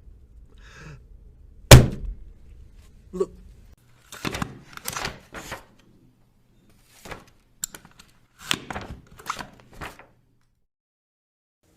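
Punch sound effects: one loud, sharp hit about two seconds in, followed by several clusters of quicker, lighter hits with short silences between them.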